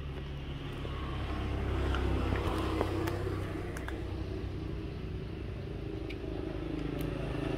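A motor vehicle engine running, its rumble swelling about two seconds in and then holding steady, with a few faint clicks over it.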